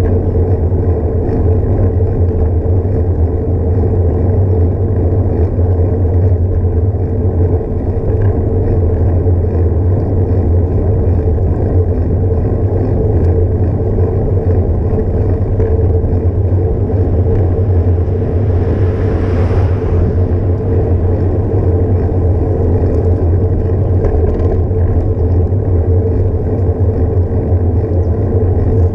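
Steady low rumble of wind and road noise on a bicycle-mounted action camera while riding, with a short hiss about two-thirds of the way through.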